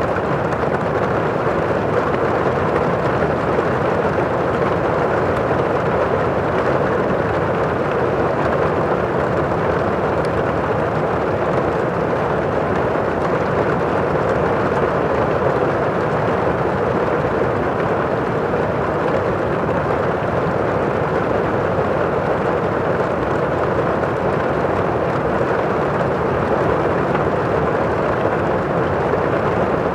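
Heavy rain pouring steadily on a roof, heard from inside the house as an even, muffled hiss with no let-up.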